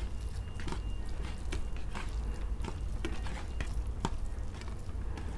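Fingers mixing rice by hand on stainless steel plates, with scattered light clicks as fingers and food touch the metal, over a low steady hum.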